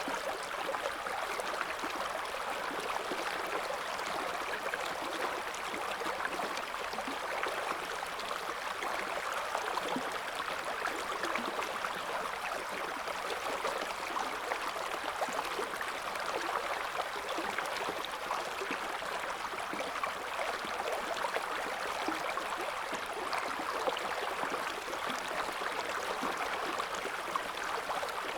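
River water flowing over stones in a shallow current, a steady splashing, babbling rush.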